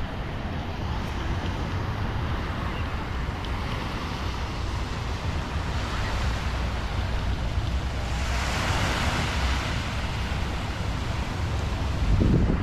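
Small waves breaking and washing up on a sandy beach, with wind rumbling on the microphone; a louder wave wash swells up about eight seconds in, and a wind gust comes near the end.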